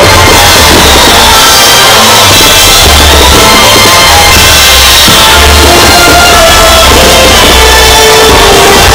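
Very loud music with drums and a changing bass line, played over a fireworks show's sound system and recorded at the limit of the microphone.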